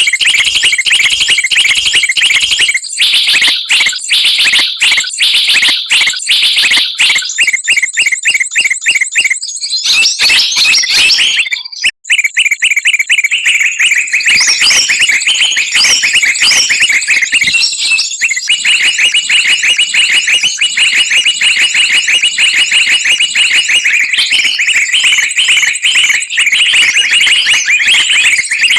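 Bird-lure recording of noisy small-songbird chatter: rapid, high-pitched chirps and trills repeating densely without letup, with a brief break about twelve seconds in.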